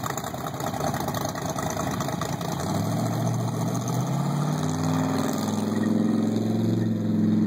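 1946 rat rod pickup's engine running rough and pulsing as the truck drives off at low speed. From about a third of the way in, a second, smoother engine note builds, growing louder and rising slightly in pitch.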